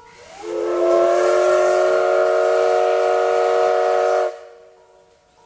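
Steam whistle of the C12 tank locomotive C12 66 giving one long blast of about four seconds, several tones sounding together as a chord. The pitch settles slightly upward as it opens, then it holds steady and cuts off sharply. It is the whistle sounded for the train's departure from the station.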